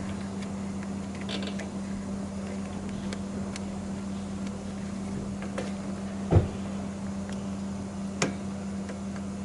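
Light metal clicks and taps from a mechanic working on the underside of a vehicle, with a louder knock about six seconds in and another about two seconds later, over a steady hum.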